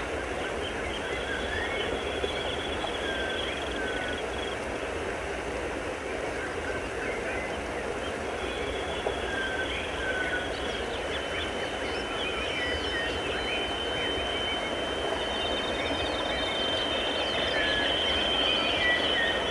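Dense electronic noise drone from a live experimental performance, with a thin high steady tone that fades in and out and holds from about halfway on, and short chirping glides scattered over the top. It swells slightly near the end.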